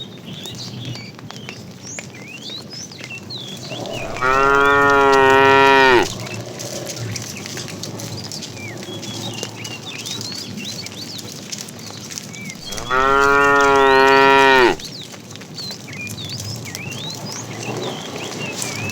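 Cow mooing twice, each a long moo of about two seconds, the second some nine seconds after the first.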